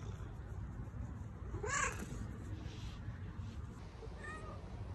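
Domestic cat meowing: one loud meow rising and falling in pitch about two seconds in, and a shorter, fainter meow near the end, over a steady low rumble.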